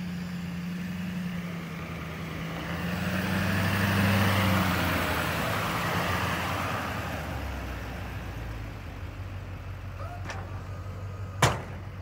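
Pickup plow truck's engine running as it drives past close by: a steady low hum, with a rush of noise that swells and then fades as the truck goes by. A single sharp knock near the end.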